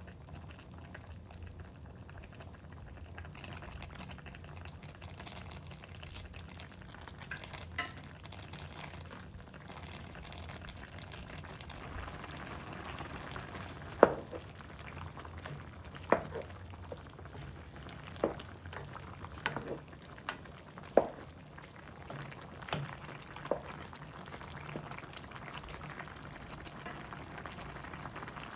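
Pot of chicken soup boiling with a steady bubbling hiss. In the second half a stirring utensil knocks against the pot about eight times.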